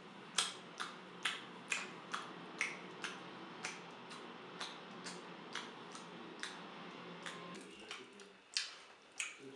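Noisy open-mouthed chewing: wet smacking clicks about two a second over a low steady hum, turning louder and less even near the end.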